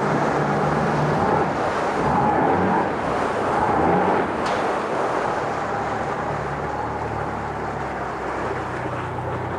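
Yamaha F90 four-cylinder four-stroke outboard running in a water test tank after a restart. It runs a little harder for the first four seconds or so, then settles slightly lower, with a small click partway through.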